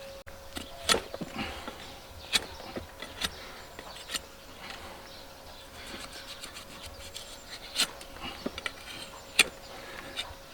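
Scattered sharp clicks and taps of a farrier's tools working on a hoof, at uneven intervals, over a faint steady hum.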